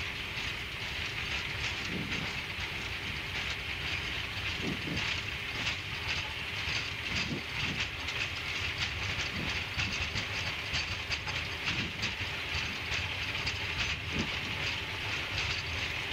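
Boeing 777 flight deck during the takeoff roll at high speed: a steady rush of engine and airflow noise over a low rumble, with many quick rattles and knocks from the wheels rolling down the runway.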